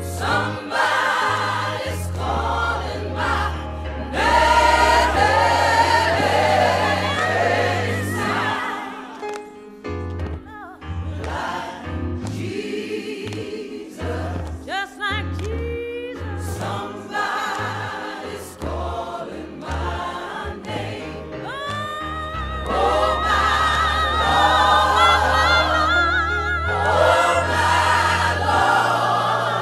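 Gospel choir singing with a sustained low bass underneath, music for a liturgical dance. A high solo voice with wide vibrato rises above the choir about halfway through and again over the last few seconds.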